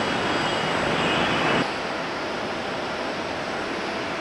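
Boeing 777-300ER jet engines roaring as the airliner rolls out after touchdown. About a second and a half in, the roar cuts off abruptly to a quieter, steady rushing noise.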